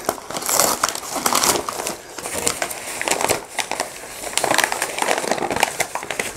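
White paper packing wrap crinkling and rustling as it is pulled open by hand, a busy run of irregular crackles.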